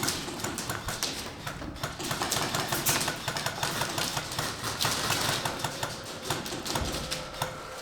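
Airsoft guns firing: a dense, irregular run of sharp clicking shots.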